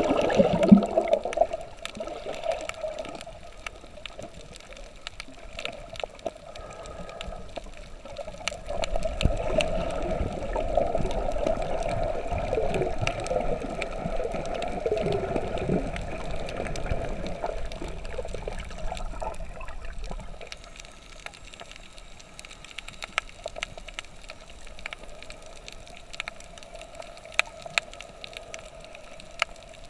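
Water gurgling and bubbling over a steady hum, with many small sharp clicks scattered throughout. It swells louder for about ten seconds in the middle.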